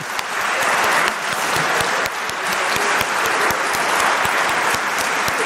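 Seated audience of several dozen people applauding, a dense patter of many hands clapping that swells over the first second and then holds steady.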